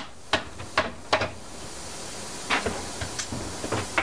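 A handful of sharp, irregular metal knocks and clunks as the crankshaft of an Evinrude/Johnson 60-degree V6 outboard is worked free and lifted out of its cylinder block.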